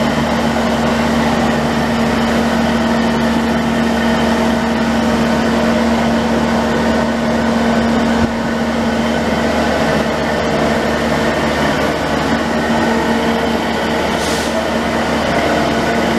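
A stationary diesel passenger train idles at the platform, giving a steady mechanical hum with a low droning tone. A short hiss comes about fourteen seconds in.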